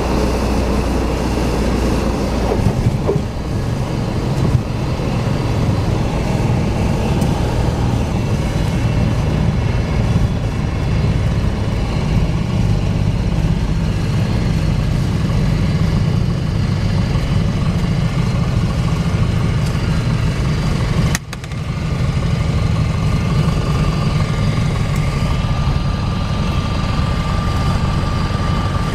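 Light aircraft's engine and propeller running steadily at low power while the plane rolls out and taxis, heard from inside the cockpit. The sound drops out for an instant about three-quarters of the way through.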